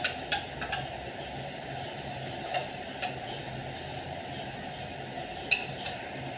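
A steady machine-like hum and hiss, with a few light clicks and taps scattered through it.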